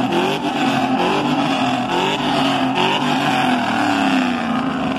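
A vehicle engine running loudly at raised revs, its pitch wavering up and down.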